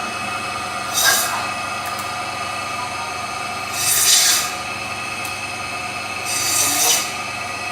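Electric chicken-cutting machine running steadily, with three rasping bursts about a second, four seconds and near seven seconds in as its blade cuts through pieces of chicken.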